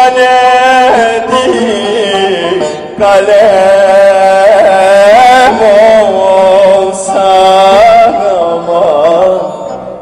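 Turkish folk song music: an ornamented, wavering melody with bending notes over a steady drone.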